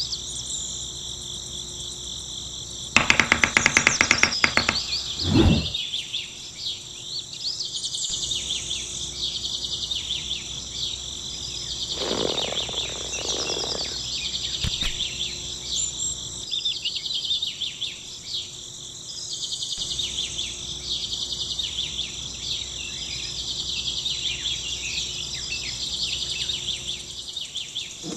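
Steady chirping of birds and insects, crickets among them. About three seconds in comes a short burst of rapid clicking, the loudest sound, and around twelve seconds a brief rustle.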